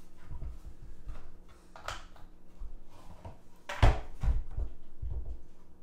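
Handling sounds of a hardcover coin album being closed and moved about over a wooden drawer: soft rustles and light bumps, with one sharp knock a little under four seconds in, the loudest sound.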